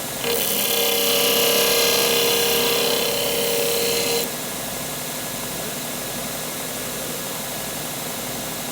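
Electric disc sander grinding the tip of a steel screwdriver shaft: a loud rasping grind with a steady ringing tone for about four seconds as the steel is pressed to the disc, then the sander's motor running on its own.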